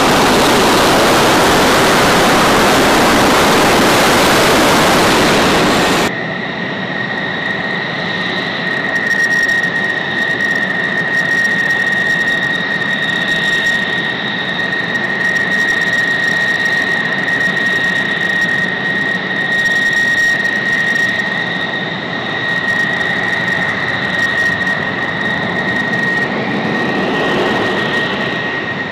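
F-16 fighter jet engine noise: for the first several seconds a loud, even rush of a jet close by, then it changes abruptly to a quieter, more distant jet sound with a steady high-pitched whine. Near the end a second whine rises in pitch as an engine spools up.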